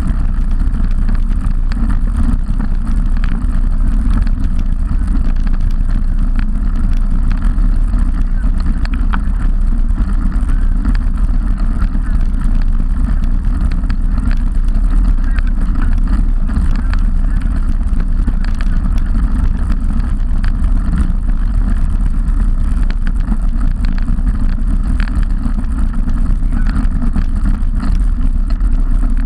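Steady wind rumble on the microphone of a camera mounted on a road bicycle moving at speed, mixed with the road noise of the tyres rolling on asphalt.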